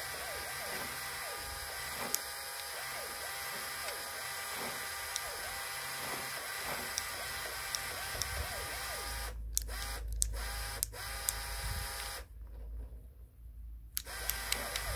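Small Lego electric motor whirring as it spins the toy boat's side wheels through plastic gears, with wavering gear whine and scattered clicks. About nine seconds in it cuts out briefly a few times, then stops for about two seconds and starts again near the end.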